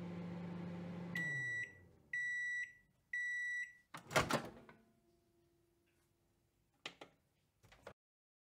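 Microwave oven running with a steady hum that winds down as it stops, then three long beeps about a second apart signalling the end of the cooking cycle. A clunk follows as the door latch pops open, then two small clicks near the end.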